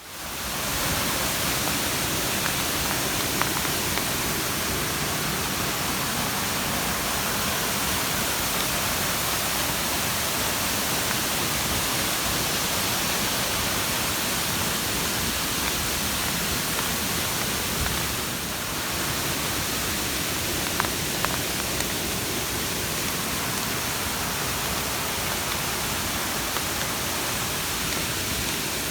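Waterfall: a steady, even rush of falling water, with a few faint ticks here and there.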